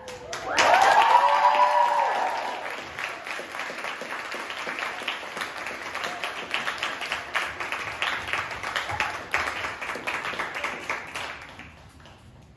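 Small audience applauding and cheering, with loud whoops about half a second in over dense clapping, which slowly thins and fades out near the end.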